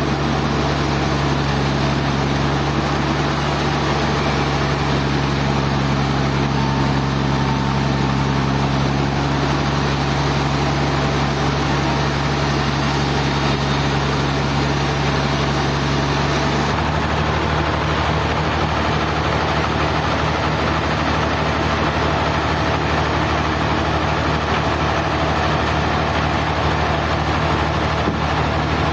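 Sawmill machinery running steadily with a deep, even engine hum; its tone changes abruptly about two-thirds of the way through.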